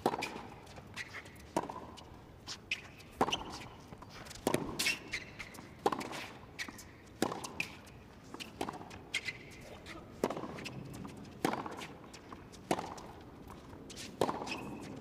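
Tennis rally on a hard court: tennis balls cracking off strings and bouncing on the court in a steady back-and-forth, a sharp pop about every half second to second.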